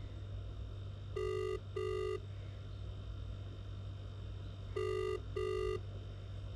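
Smartphone's outgoing call ringback tone from its speaker while the call is still unanswered: two short beeps, a pause of about three seconds, then two more, over a faint steady low hum.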